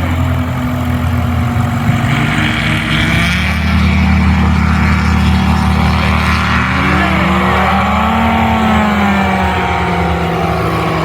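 Light aircraft piston engine and propeller running steadily. Its pitch rises and falls briefly past the middle.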